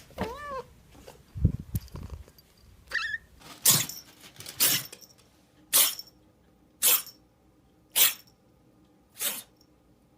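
A cat meows briefly, then a run of six short, sharp, breathy puffs comes about a second apart.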